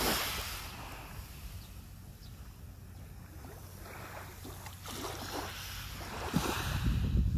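Small waves washing onto a pebble shore in several swells, with wind buffeting the microphone, loudest at the start and near the end.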